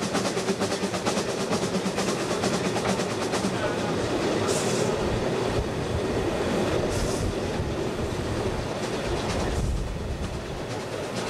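Queensland Railways A10 class steam locomotive No. 6 running along the line, heard from its own tender: a rapid rhythmic clatter of wheels and exhaust, with two brief hisses.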